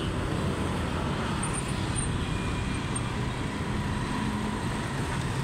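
Steady low rumble of engines and traffic, with no single sound standing out.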